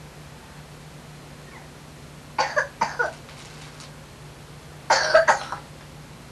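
A person coughing in two short bouts about two and a half seconds apart, each made of a few quick coughs, over a faint steady hum.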